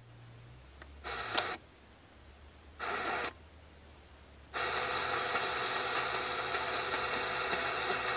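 Pioneer car radio scanning the medium-wave AM band. Faint, nearly quiet gaps are broken by two short bursts of noise as the scan briefly stops on frequencies. About halfway through, steady static and hiss sets in on a weak signal at 954 kHz and runs for about four seconds.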